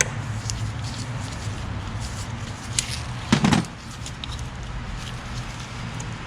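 Light clicks and, about three and a half seconds in, a brief louder clunk of a stuck hose and its fittings being worked loose by hand in a car's engine bay, over a steady low hum.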